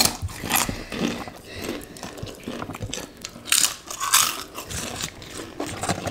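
Close-up eating sounds from two people chewing and biting into a very spicy meal of rice with sambal squid: irregular wet mouth clicks and some crunching. A few sharp, breathy puffs of air are blown out against the chilli heat, the loudest about three and a half and four seconds in.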